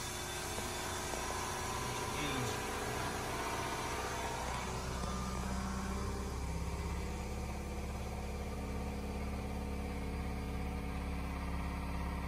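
Volkswagen Jetta VR6 12-valve engine running, uneven for the first few seconds and then settling into a steady idle about five seconds in. The car had sat unused for about two years.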